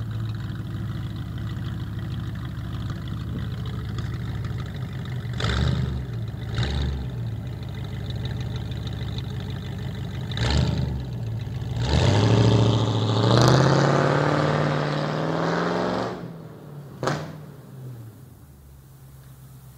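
Ford Mustang GT's 302 V8 with an upsized exhaust idling with a deep, loud rumble. It is blipped sharply three times, then revved and held for about four seconds before falling back. One last quick blip near the end is followed by a quieter idle.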